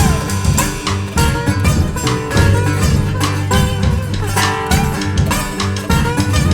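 Blues band playing an instrumental passage between verses, with guitar to the fore over double bass and drums.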